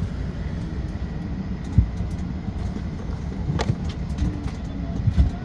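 Aircraft cabin noise: a steady low rumble of the airliner with a few light knocks, the sharpest about two seconds in.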